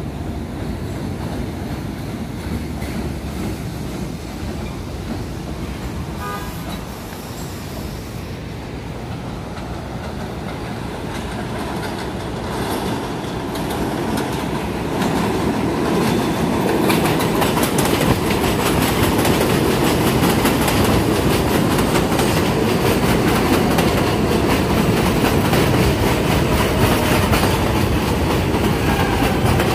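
New York City subway trains on elevated steel track: the running noise of an R68 train, a short horn toot about six seconds in, then an R160 train approaching and passing close. Its wheels clatter over the rail joints, growing louder from about fifteen seconds in, with a faint wheel whine near the end.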